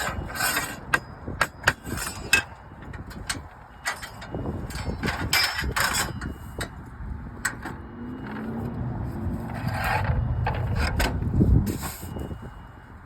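Sharp clicks and knocks of slate and roofing tools being handled on a slate roof, with a louder cluster of knocks about a second to two and a half seconds in. A low rumble builds up near the end and then fades.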